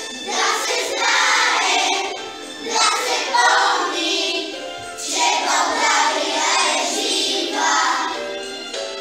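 A children's choir singing a Bulgarian song over instrumental backing, in phrases of a second or two.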